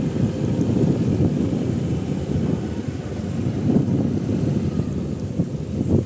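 Low, uneven rumble with wind buffeting the microphone.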